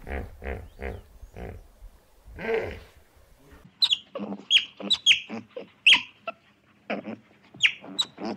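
Animal calls: a run of short, low grunts in quick rhythm, then about three and a half seconds in a change to a different animal's sharp, quick high calls.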